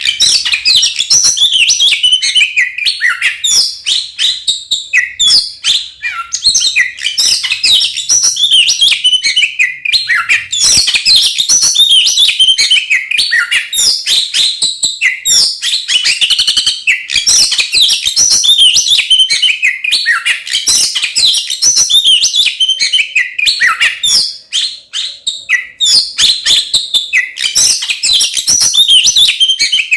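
Oriental magpie-robin (kacer) in full fighting song: a fast, loud, varied string of whistles and chirps with hardly a pause, dipping briefly about 24 seconds in.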